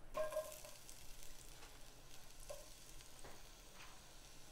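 Diced onion swept off a cutting board into a hot skillet, sizzling faintly as it lands, with a short ring from the pan at the start and a few light knocks.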